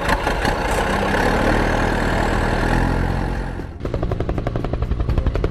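Vehicle sound effects from an animated video: a steady, rumbling engine-like noise that stops just before four seconds in, giving way to a rapid, even chopping pulse.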